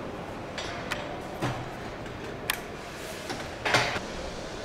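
Car assembly-line noise: a steady background of factory sound with four sharp clicks and knocks of parts being handled, the loudest about three and a half seconds in.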